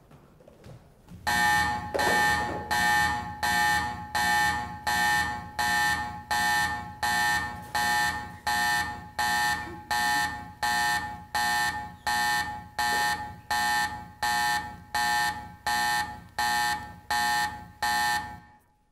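An alarm sounding in evenly repeated pulses, about one and a half a second. Each pulse is a pitched, ringing tone that starts loud and fades before the next. It starts about a second in and cuts off suddenly just before the end.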